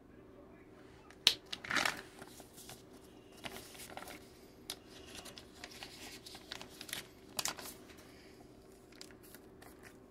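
Paper envelope crinkling and rustling as hands open it, with scattered clicks and short scrapes of trading cards being handled. The sharpest clicks come a little over a second in.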